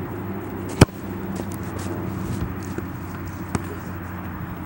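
A sharp, loud knock about a second in and a fainter one near the end, over a steady low hum.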